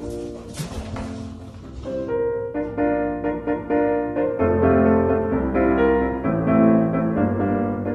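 Piano music playing, a melody of short notes with chords. During the first two seconds a hissing rustle sounds over it.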